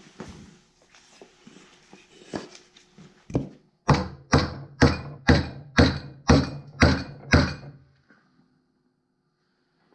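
Hammer striking a block of wood against the cast-iron transmission top cover of a 1942 Farmall H tractor to knock it loose: a couple of single knocks after some handling noise, then eight sharp blows about two a second, each with a low ring.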